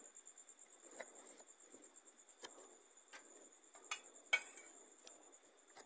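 Crickets trilling in a continuous high, finely pulsing chirr, faint but steady. A few short clicks break in, the loudest about four and a half seconds in.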